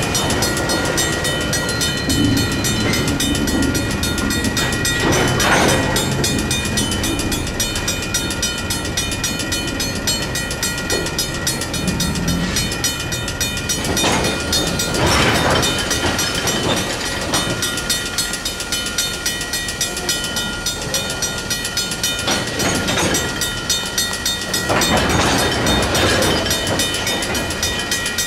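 Railroad crossing warning bells ringing steadily, a Safetran mechanical bell and a WCH electronic bell, while a train's rail cars roll through the crossing. Louder swells of wheel and car noise come and go every few seconds.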